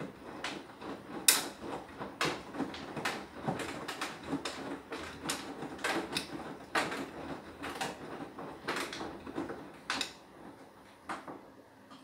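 Beko WTK104121W washing machine drum turning with the load tumbling inside, making irregular clunks and clatters, several a second. The knocking dies away about eleven seconds in as the drum stops.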